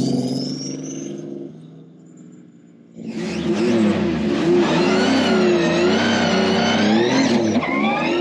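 A car engine fades away over the first second or so. After a short lull, about three seconds in, a loud car engine cuts in, revving up and down at high revs, with a quick rise in revs near the end.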